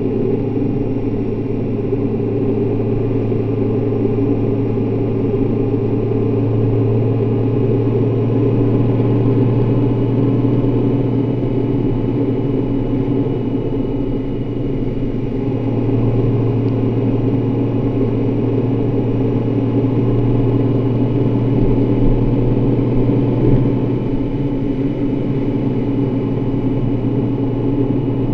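Honda Gold Wing motorcycle engine running steadily at cruising speed, with a steady hum and wind rush.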